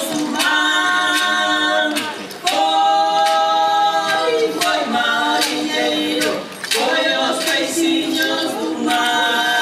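Music of voices singing a cappella in held chords, phrase by phrase with short breaks between, over sharp percussive hits.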